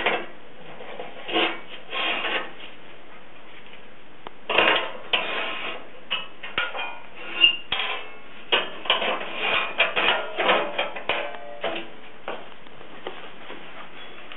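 Steel hinge bar and coil springs being worked through the holes of stainless steel hinge plates: irregular metal clinks, scrapes and rattles, busiest from about four seconds in until near the end, with one short metallic ring in the middle.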